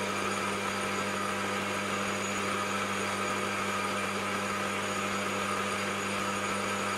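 Mini lathe running at a steady speed with a constant motor hum as the cutting tool turns down the body of a small metal nut.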